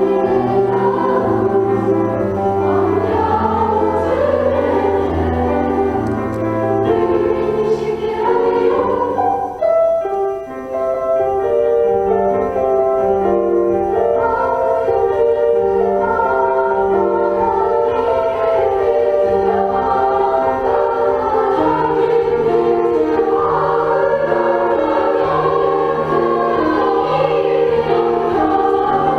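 School class choir singing in parts with piano accompaniment, the voices dropping out briefly about ten seconds in before the singing resumes.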